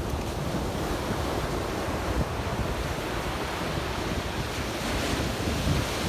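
Ocean surf washing up a sandy beach, a steady rush of waves, with wind rumbling on the microphone.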